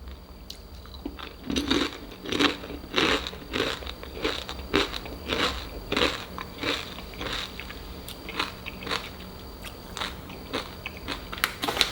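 Crunching bites and chewing of crispy fried chicken skin chips, about two crunches a second that soften as the chewing goes on.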